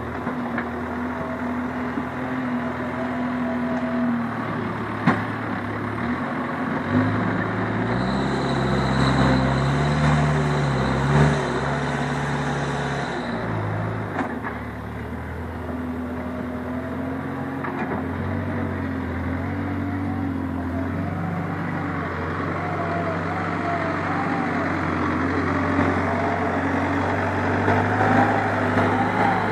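New Holland backhoe loader's diesel engine running under working load. It speeds up and rises in pitch about seven seconds in, then drops back about halfway through. Two sharp knocks come at about five and eleven seconds.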